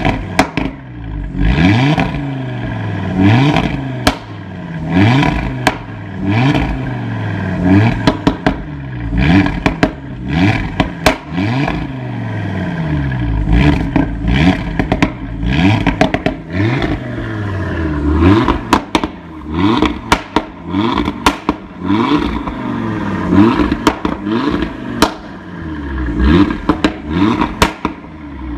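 Exhaust of a 2015 Audi RS3's turbocharged 2.5-litre five-cylinder, loud, being blipped again and again while the car stands still: the revs rise and fall about every one and a half seconds. Sharp crackles and pops come as the revs drop.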